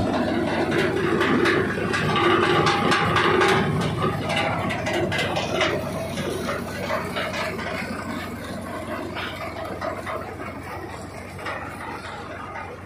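Wheeled crop thresher running, with a dense rattling clatter as dry crop stalks go through it and are thrown out. The sound slowly gets fainter after about four seconds.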